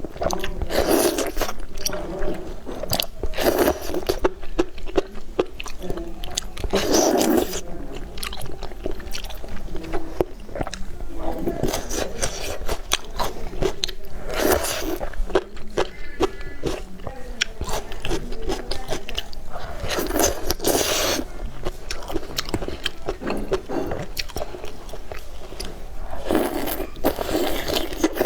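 Close-miked eating: repeated crunchy bites, every second or two, with chewing in between.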